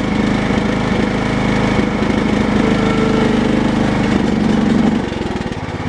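Cub Cadet 1018 lawn tractor engine running steadily, then dropping slightly in level and pitch about five seconds in.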